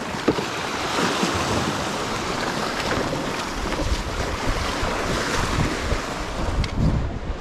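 Sea surf washing against shore rocks, with wind blowing across the microphone in uneven gusts and an occasional short knock.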